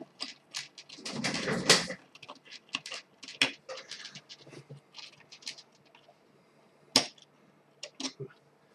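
Small plastic and metal clicks and taps of LEDs and their wire leads being pushed into a circuit board, with a brief louder rustle of handling about a second in and one sharp click near the end.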